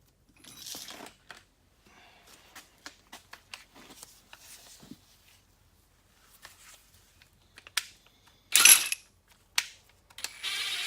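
Metal parts and tools handled during drive-shaft universal joint work: scattered light clicks and clinks, a loud metallic clatter about eight and a half seconds in, and a steady buzzing whir that starts near the end.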